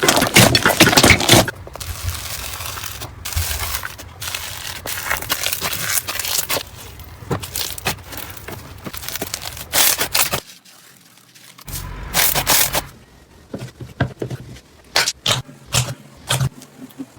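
Slime being handled by hand: dense crackling and popping for the first second or so, then softer sticky crackle with scattered pops, and separate sharp pops near the end.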